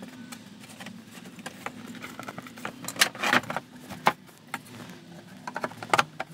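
Wooden stiles and rails and a plywood panel knocking and clattering as they are pushed together into a shaker-style frame for a dry fit, with a burst of knocks about three seconds in and another near the end.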